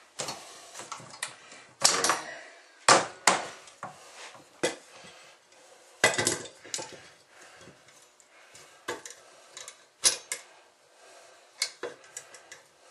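Irregular metallic clanks and knocks of hand tools against a steel wheel rim as a garden tractor tire is levered onto the rim by hand with a pry bar, vise grips clamped on the rim holding the bead. A few sharper strikes stand out, about two, three, six and ten seconds in.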